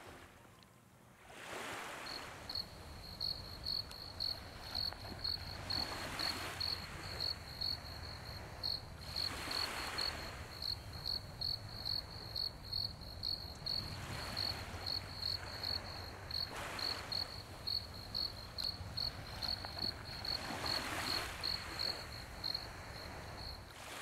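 A cricket chirping steadily, about two high chirps a second, over waves washing onto the shore every few seconds.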